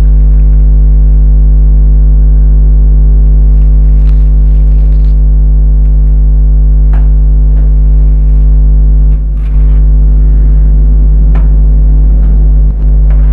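A loud, steady electrical hum with its overtones, of the kind mains interference puts into a recording. A few faint clicks and scrapes come through it.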